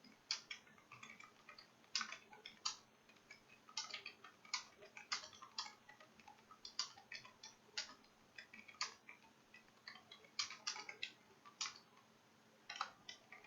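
Computer keyboard keys clicking faintly in quick, irregular runs of keystrokes: touch typing during a timed typing test.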